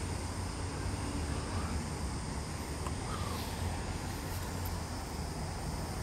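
Steady, low rumble of an aircraft passing high overhead.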